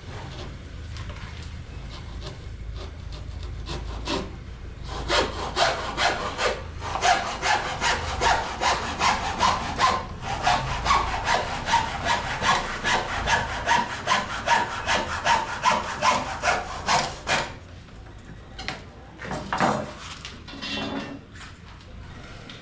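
Hand saw cutting with regular back-and-forth strokes, about two a second, from about five seconds in until about seventeen seconds in. There is softer scraping before the strokes and a few scattered knocks after them.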